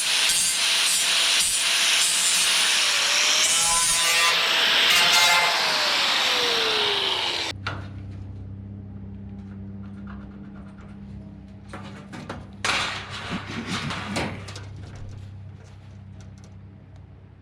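Angle grinder with an abrasive cutoff wheel cutting ribbed sheet metal. It makes a loud, harsh grinding with a whine whose pitch drops under load before stopping abruptly about seven and a half seconds in. A low steady hum and a few knocks and clatter follow.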